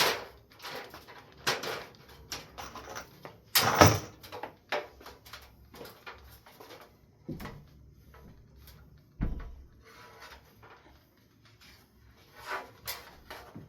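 Knocks, clunks and scrapes of a ladder being moved and handled, with a sharp bang about four seconds in and a low thud a little past nine seconds.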